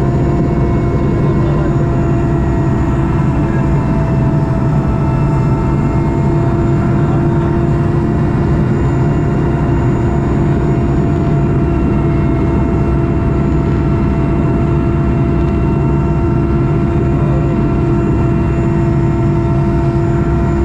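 Helicopter engine and rotor running steadily as the helicopter descends to land: a loud, even drone with a constant whine held over it.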